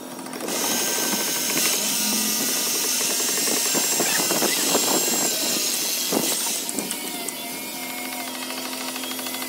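Corded electric drill running and boring into brickwork, a loud steady whine that starts about half a second in and stops about two-thirds of the way through.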